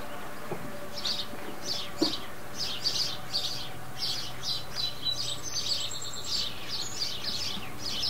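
Birds chirping outdoors in quick repeated short notes, a few a second, with a brief high whistle in the middle. A faint steady hum runs underneath, and there is one soft knock about two seconds in.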